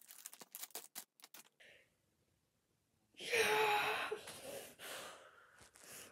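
Clear plastic packaging crinkling and crackling as it is handled during the first second and a half, then, about three seconds in, a loud breathy vocal exhale lasting about a second.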